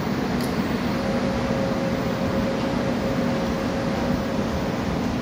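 A Korail Class 341000 electric multiple unit standing at the platform with its onboard equipment humming steadily. A thin steady whine comes in about a second in and stops near the end.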